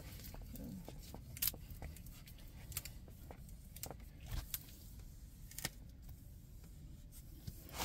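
Quiet handling of a diamond-painting canvas being smoothed and pressed by hand: scattered soft clicks and rustles of the canvas and its plastic cover over a low steady hum.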